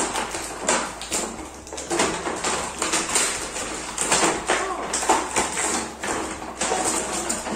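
Clear plastic toy packaging being handled and pulled off a plastic playset: irregular crinkling and crackling with small knocks of plastic on plastic.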